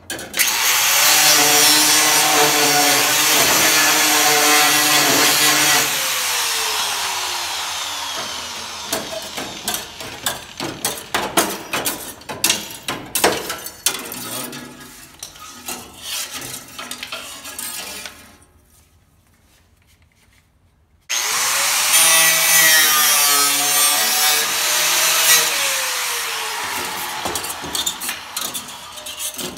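DeWalt angle grinder cutting through old welds and sheet-steel flange, then spinning down with a falling whine. Scattered clanks and scrapes of the loosened metal being worked, a couple of seconds of near silence, then the grinder cuts again from about two-thirds of the way in and winds down near the end.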